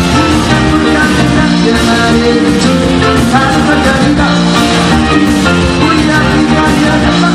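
Live rock 'n' roll band playing, with grand piano among the instruments.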